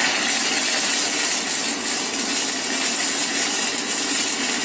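Stick welding (SMAW) arc burning steadily on a 7018 electrode: an even, steady hiss.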